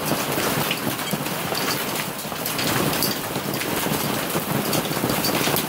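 Heavy rain mixed with hail: a steady, dense hiss of downpour with frequent sharp ticks of hailstones striking and bouncing.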